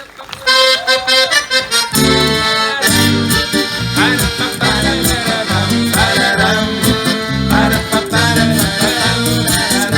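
Live acoustic instrumental break in a folk song: a held, pitch-bending melody line over a steady rhythmic accompaniment, with no singing.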